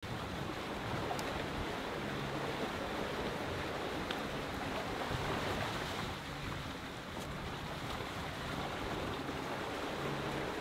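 Steady rush of sea water along a moving sailboat's hull, with some wind.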